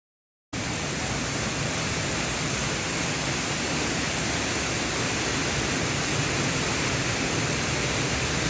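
Waterfall rushing: a steady, even wash of falling water that cuts in suddenly about half a second in, after a moment of dead silence.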